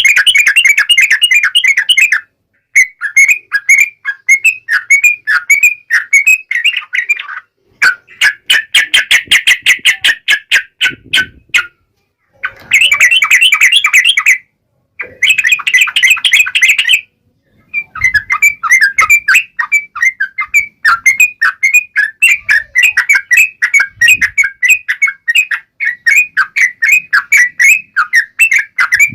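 Yellow-vented bulbul (trucukan) calling in fast runs of rapid, repeated chattering notes. The runs are a few seconds long, separated by brief pauses.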